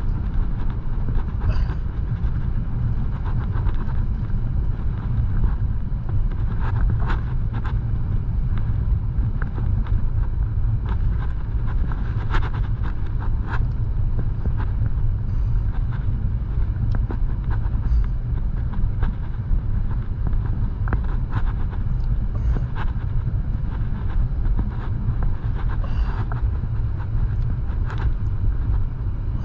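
Car driving slowly at about 25 mph: a steady low rumble of engine and road noise, with occasional light clicks or rattles every few seconds.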